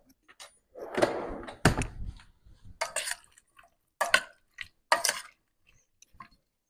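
Cooking pot and utensils being handled: a brief watery rush about a second in, then several sharp clinks and knocks of metal a second or so apart.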